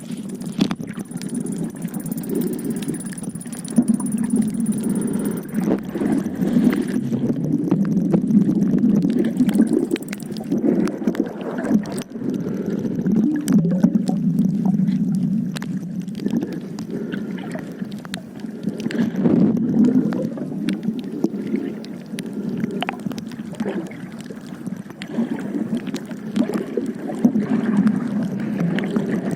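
Low rushing and gurgling water noise that swells and fades every few seconds, with scattered faint clicks.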